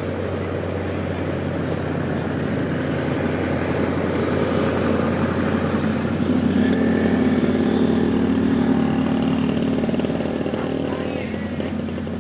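Diesel-hauled passenger train pulling away along the track, a steady engine and running rumble that swells around the middle and eases off near the end.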